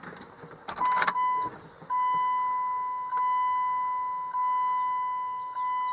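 Dashboard warning chime of a second-generation Dodge Ram, sounding as the ignition key is switched on: a couple of clicks, then one steady high tone that repeats about every second and a quarter, each stroke fading.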